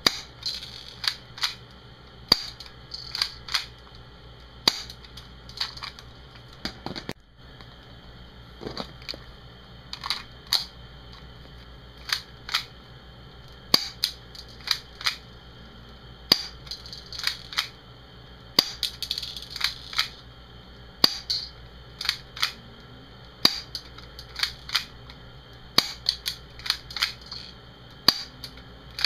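KWC M92FS spring airsoft pistol, a Beretta 92FS replica, fired about a dozen times, a sharp snap every two to two and a half seconds. Between shots there are smaller clacks as the slide is pulled back by hand to cock the spring for the next shot.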